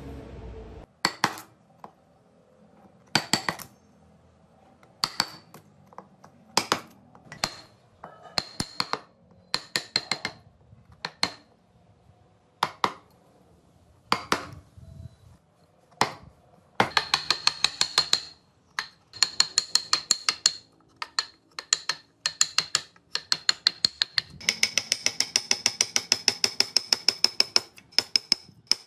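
Steel carving chisel being tapped into wood: sharp clicks with a high metallic ring. They come singly, a second or two apart, at first, then in fast runs of taps from about halfway, ending in a long, even run near the end.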